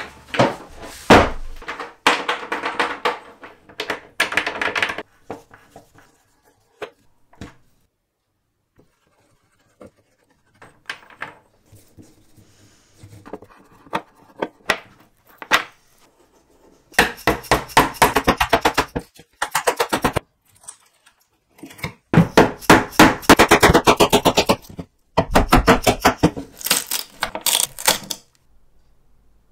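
Thunks as a wooden cabinet is handled and set down on a workbench. Later come two long runs of quick, repeated sharp knocks on wood, a small hammer driving a chisel into the cabinet's panel, with a quieter stretch between.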